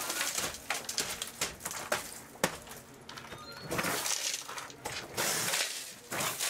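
Footsteps crunching over shattered glass covering a train's floor, a run of irregular sharp crackles and clinks, with one sharper crack about two and a half seconds in.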